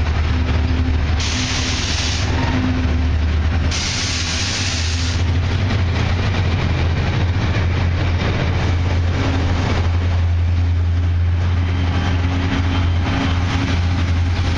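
Heavy diesel-electric freight locomotives hauling a loaded iron ore train uphill as they pass, with a deep, steady engine drone. Two bursts of hissing come in the first five seconds.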